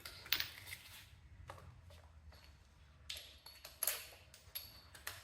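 Irregular light metallic clicks and scrapes of a 9/16 wrench working on the front wheel's fastener of a Cub Cadet garden tractor, with a few sharper clinks about three to four seconds in.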